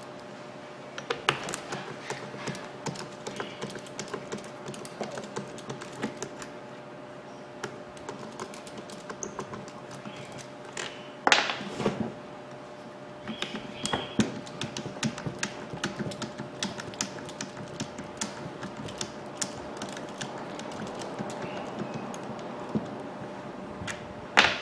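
Screwdriver working out the housing screws of a Makita hammer drill: a run of small, irregular clicks and scrapes of metal and plastic as the drill is handled. Two louder knocks come about eleven seconds in and near the end, over a faint steady hum.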